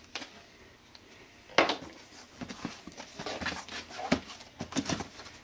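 Cardboard box flaps being pulled open and folded back by hand: one sharp crack or slap of cardboard about a second and a half in, then a run of lighter rustles and soft knocks as the flaps are handled.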